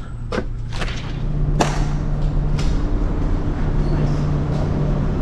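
A door, likely the laundromat's, opening and shutting: a few sharp clicks and knocks in the first two seconds, the loudest a thud. A steady low hum follows.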